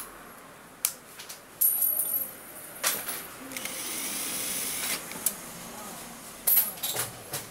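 Cordless drill-driver turning the screws of a TV's main board, its motor running in a short burst of about a second and a half near the middle. Sharp clicks and clatters of the tool and screws come before and after the burst.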